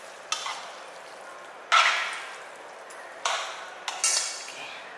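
Spaghetti in sauce being tossed with a fork in a hot pan: four short hissing bursts of sizzle and scraping, each fading within about a second, the loudest about two seconds in.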